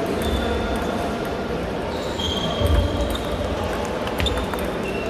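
Table tennis balls clicking off bats and tables at irregular moments, over the steady background noise of a large hall with many matches being played.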